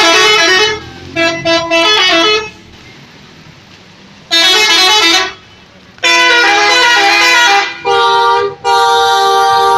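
Telolet bus horn, the multi-tone musical horn of an Indonesian bus, playing a tune in loud blasts of quickly stepping notes, some phrases holding two notes together. It sounds in about six bursts with short gaps between them, the longest pause around three to four seconds in.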